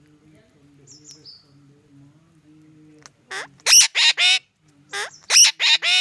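Parakeet calling loudly: two quick bursts of about four short calls each in the second half. A faint steady low hum runs underneath.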